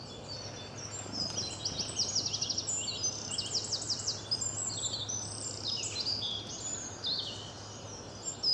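Several birds chirping and singing, including quick runs of repeated downward-sliding notes, over a low steady hum.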